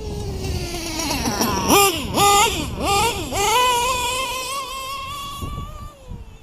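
LRP .32 nitro engine in an RC buggy screaming at high revs. Its pitch drops first, then it climbs in four quick throttle blips, holds a high steady whine, and falls away near the end. The high-speed needle is set a bit too lean, which the owner judges from how it screams.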